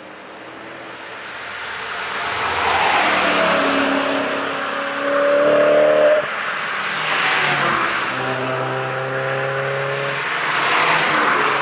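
Several cars drive past close by at speed, one after another. Each engine note and the tyre noise swell and fade as the car goes by. One engine note cuts off abruptly about six seconds in.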